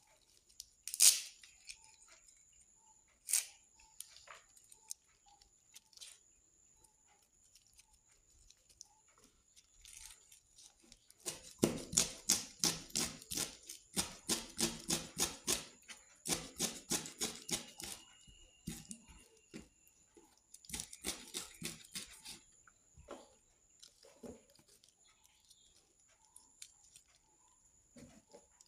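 Kitchen knife chopping curry leaves on a plastic cutting board: runs of quick, even strokes about four a second, coming in several bursts with pauses. Near the start a few sharp clicks and snaps as the leaves are torn by hand, over a faint steady high whine.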